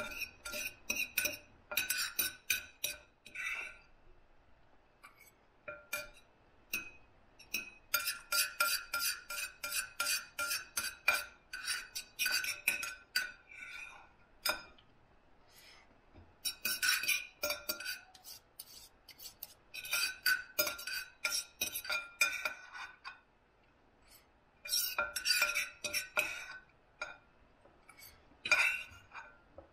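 Knife and fork clinking and scraping against a plate while cutting and eating a steak, in bursts of quick clinks with short pauses between.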